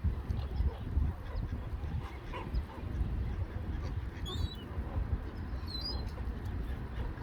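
Ducks and geese calling on a lake, short scattered calls over a steady low rumble, with two brief high chirps around the middle.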